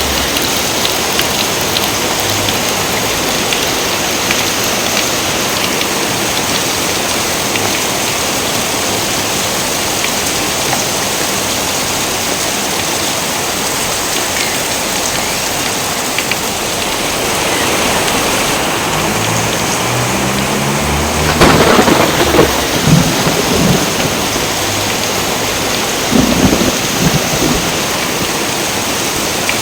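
Steady rain falling throughout. Thunder cracks sharply about two-thirds of the way through and rumbles on for a couple of seconds, then a second roll of thunder rumbles a few seconds later.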